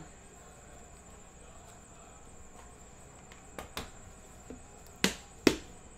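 Handling sounds from a cardboard gatefold box and a clear plastic card case being lifted out of it: two light taps a little past halfway, then two sharp clicks about half a second apart near the end.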